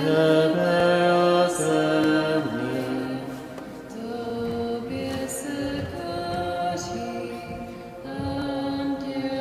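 Church congregation singing a slow Czech Catholic hymn, holding each note for about a second.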